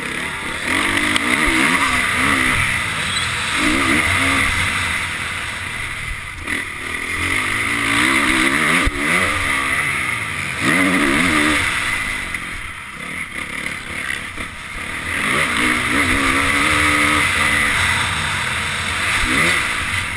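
Honda CRF450 dirt bike's single-cylinder four-stroke engine, heard from the rider's helmet, revving up and dropping back again and again as the rider accelerates, shifts and rolls off through the track's turns and jumps. Steady wind rush on the helmet microphone runs under it.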